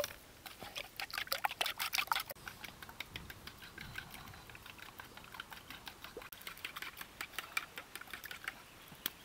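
Eggs being beaten in a clay bowl: a utensil clicking rapidly against the bowl and through the eggs, quickest and loudest about a second in, then lighter and steady.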